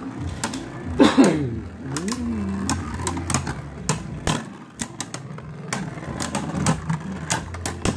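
Two Beyblade Burst spinning tops clashing in battle: repeated sharp clicks and knocks at irregular intervals as they hit each other, over a steady low hum. A short voiced exclamation comes about a second in.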